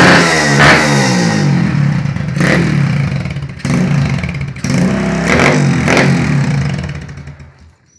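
A motorcycle engine bored out with a 190 kit, fed by a 26 mm carburettor and running on a ported head and cam, revved repeatedly at standstill through an aftermarket muffler, its pitch climbing and dropping with each twist of the throttle. The sound fades out near the end.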